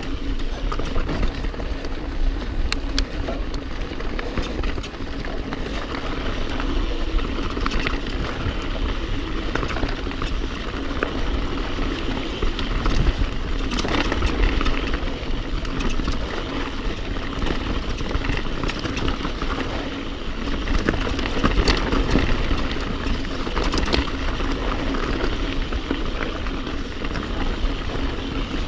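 Full-suspension mountain bike ridden fast down a dirt singletrack, heard from a camera mounted on the bike: tyres rolling over dirt and stones with the bike rattling, over a steady low rumble, and sharp knocks from bumps now and then.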